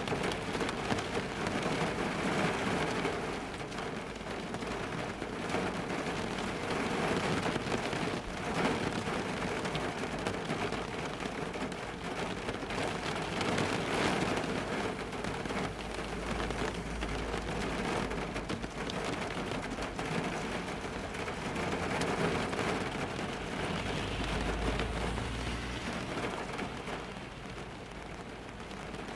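Rain falling steadily on a car's roof and windows, heard from inside the car: a dense patter of drops. A deep low rumble swells twice in the second half.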